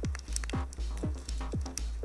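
Electronic music with a steady beat: a deep kick drum about twice a second over a sustained low bass, with short hi-hat ticks in between.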